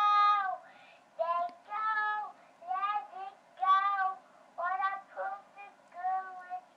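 A young child singing, heard through a Graco baby monitor's speaker: a string of held, pitched notes with short gaps between them.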